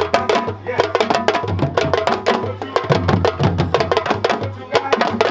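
West African drum ensemble playing a fast, dense rhythm of sharp hand and stick strokes without a break.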